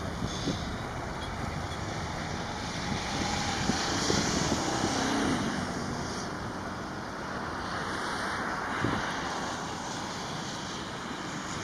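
Airbus A330-900's Rolls-Royce Trent 7000 turbofans at takeoff thrust during the takeoff roll, a steady jet noise that swells slightly a few seconds in, with wind buffeting the microphone.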